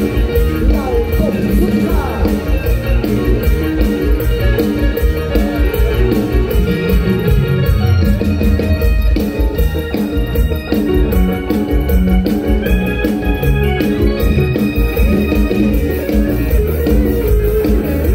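Mor lam band music played through a large PA: an electronic keyboard carries the tune over a steady drum beat and heavy bass, with no singing.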